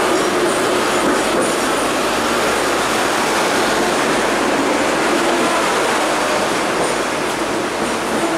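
Hong Kong double-decker tram running along its street track, heard from inside the upper deck: a steady rumble of steel wheels on rail with a low hum, and faint high-pitched wheel squeals briefly about a second in and again near the end.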